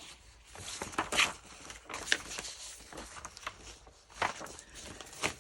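Paper rustling with a few light taps and clicks as loose paper pieces are picked up and handled.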